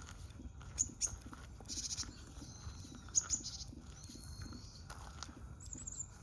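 Short high-pitched bird calls, about seven scattered over a few seconds, over a steady low background rumble.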